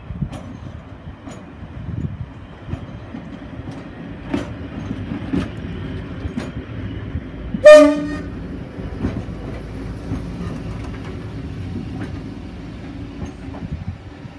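Class 42 Warship diesel-hydraulic locomotive running slowly past, its engines droning steadily, with scattered sharp clicks from the track. About halfway through comes one short, loud horn blast.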